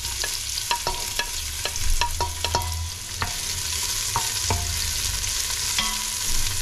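Chopped red onion sizzling in hot olive oil in a stainless steel pressure cooker pot, stirred with a wooden spoon that knocks and scrapes against the metal in irregular taps, some of them briefly ringing.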